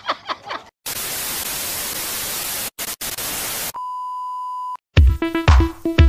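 Laughter trailing off, then a burst of television-style white-noise static lasting about three seconds with two brief dropouts, then a steady beep-like test tone for about a second. About five seconds in, an electronic music beat with a heavy kick drum starts.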